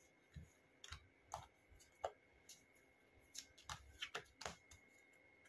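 Faint, scattered clicks and taps of tarot cards being handled and laid on the table, about eight in a few seconds.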